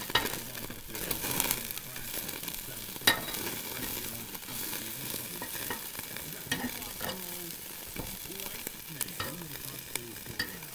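Hamburger patties and a red hot sausage sizzling over a charcoal grill: a steady hiss with scattered sharp crackles and pops.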